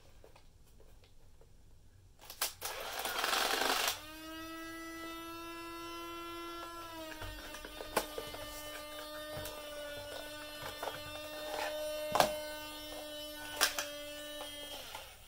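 Kodak EK6 instant camera's electric eject motor running as a steady whirring hum for about ten seconds, dipping slightly in pitch a few seconds in, with a few clicks over it, then stopping. It whirs without ejecting anything: the camera is failing. Before the motor starts there is a brief scraping rustle of handling.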